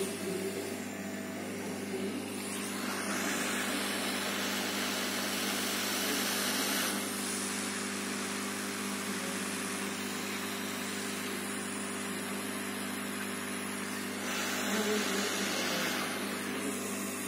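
Hot air rework gun blowing steadily with a hum, reflowing solder to fit a capacitor on a laptop motherboard. The rush of air gets louder from about three to seven seconds in and again briefly near the end.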